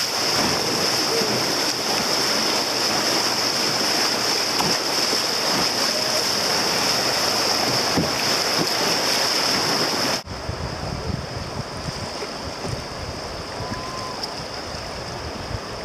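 Whitewater rapids rushing and splashing around a canoe's bow, a loud steady hiss of churning water. About ten seconds in it cuts off suddenly to a quieter stretch of river with wind rumbling on the microphone.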